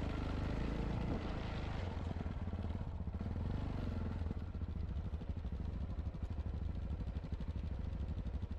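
Yamaha XT660Z Ténéré's single-cylinder engine running steadily, its firing beat coming through more distinctly in the second half.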